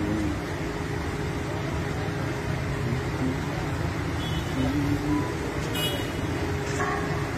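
Steady rumble of road traffic, with faint voices and a brief sharp click about six seconds in.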